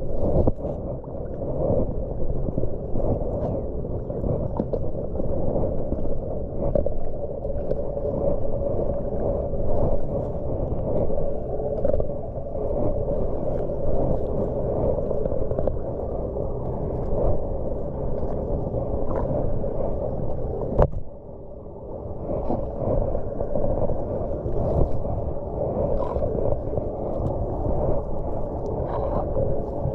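Floodwater rushing and gurgling through leaf debris into a clogged street drain as it is cleared by hand. There is a sharp click about two-thirds of the way through, after which the water noise briefly drops.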